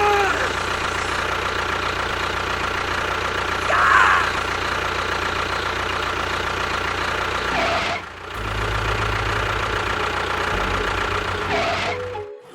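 A vehicle engine running steadily. About eight seconds in it briefly dips and then carries on with a deeper, heavier hum.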